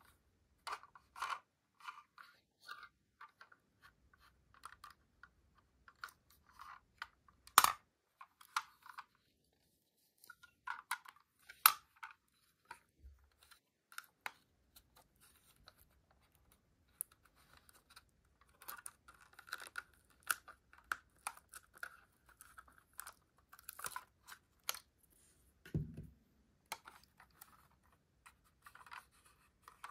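Fingers handling a 1/24 diecast model car, crinkling and rubbing the clear tape stuck across its plastic underside, with many small clicks and scrapes. Two louder sharp clicks come about eight and twelve seconds in, and a soft low thump near the end.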